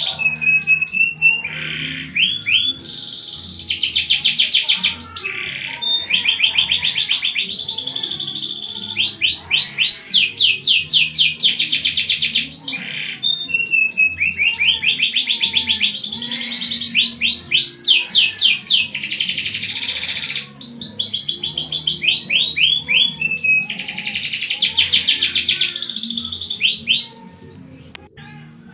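Domestic canary singing a long song of fast rolling trills and rapidly repeated notes, in phrases broken by short pauses. Near the end the song breaks off.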